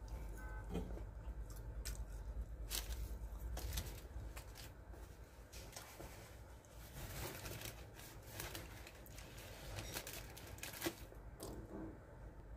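Paper napkin and the paper wrapping under the fried chicken crinkling and tearing as they are handled: irregular crackles and rustles with small sharp snaps, and a low hum under the first few seconds.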